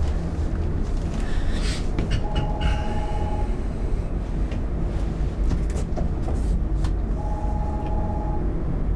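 Lift car running: a steady low rumble from the lift machinery, with a short mid-pitched tone that sounds twice, about five seconds apart, and a few light clicks.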